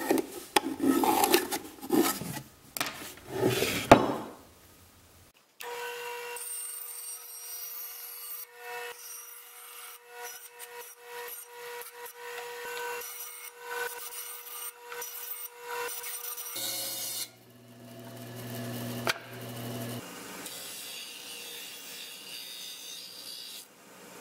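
Wood rubbing and knocking as a maple board is worked into the birdhouse box. This is followed by a bandsaw cutting a maple board, its blade running with a steady whine under the cutting noise. Then, for the last several seconds, a disc sander runs as the board is sanded.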